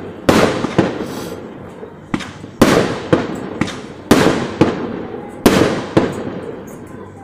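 Aerial firework shells bursting in the sky: four loud bangs about a second and a half apart, each followed by smaller cracks and a rumbling echo that dies away.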